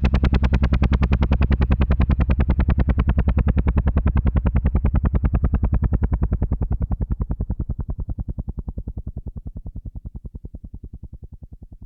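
Helicopter rotor blades chopping in a fast, even beat. The sound fades and grows duller through the second half.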